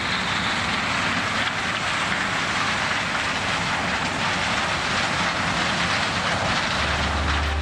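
Combine harvester with a corn header running through standing maize: a steady, loud rushing noise of the machine and the stalks being cut.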